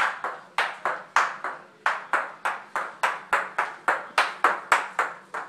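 Women's high-heeled shoes clacking on a tile floor as a toddler walks in them: quick, even steps, about three to four a second.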